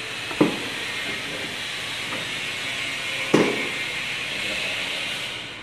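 Two dull knocks about three seconds apart as a knobby rubber power-tiller wheel is handled and fitted onto its axle, over a steady hiss.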